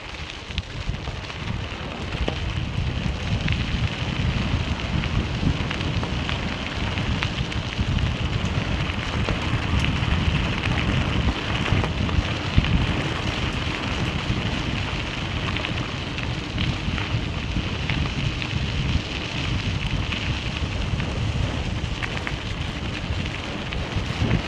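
Bicycle tyres crunching and crackling over a loose gravel road at speed, with a low rumble of wind on the microphone underneath. The noise grows louder in the first couple of seconds.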